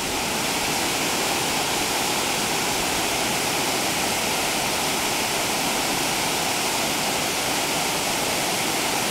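Steady rush of water pouring over a mill dam spillway.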